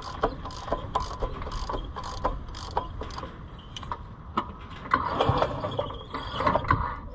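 The dry, stiff two-stroke engine of a 1980 Harley-Davidson golf cart is being turned over by hand. It gives off repeated sharp metallic clicks, about two a second, then a stretch of scraping and rubbing near the end. The engine is short of oil and not yet turning freely.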